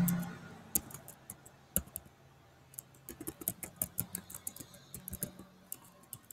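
Typing on a computer keyboard: light key clicks, a few scattered at first, then a quicker run from about three seconds in.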